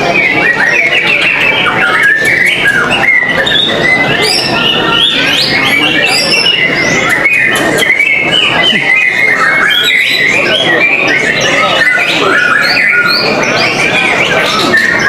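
Several white-rumped shamas singing at once: a loud, dense, unbroken tangle of rapid whistles, trills and chirps.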